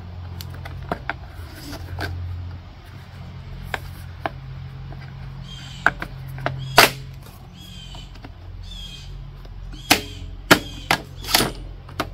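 Plastic engine shroud of a Briggs and Stratton 550EX mower engine being pressed down and its tabs clicked back into place: a series of sharp clicks and knocks, several in quick succession near the end.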